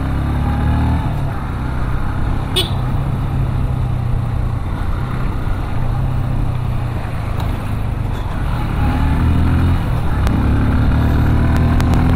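A vehicle engine running, a loud low drone whose pitch shifts a few times, with a single sharp click about two and a half seconds in.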